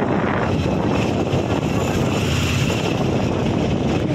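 Auto-rickshaw engine running steadily while the vehicle drives at speed, heard from inside the open cab, with wind noise on the microphone and road rumble.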